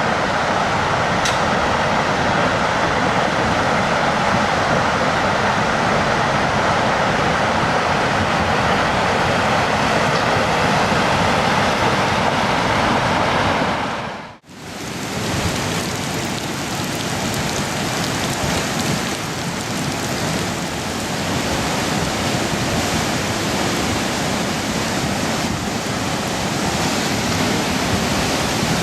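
Tsunami floodwater rushing in a steady, loud wash of noise. About halfway through it drops out for a moment, then resumes with a slightly different tone.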